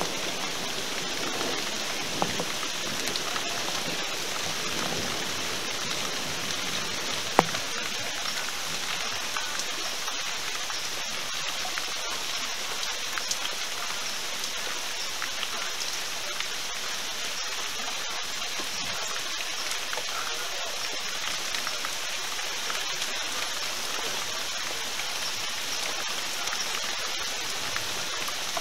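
Steady rain falling in a thunderstorm, an even hiss. The last of a thunder rumble fades out over the first few seconds, and a single sharp click comes about seven seconds in.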